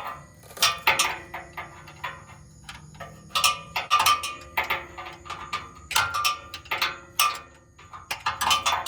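Irregular metallic clicks and clinks of hand tools, a few a second, with some faint ringing between them.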